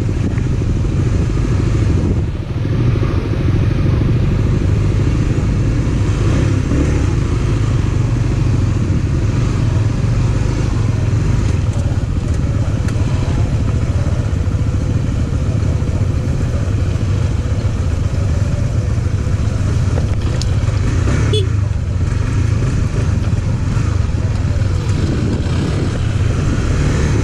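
Honda CB150X single-cylinder engine running steadily as the motorcycle is ridden along.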